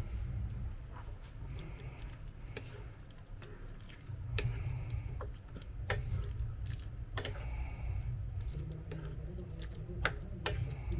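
Occasional light clinks and knocks of a cooking utensil against a pot of stew, a few seconds apart, over a low steady hum.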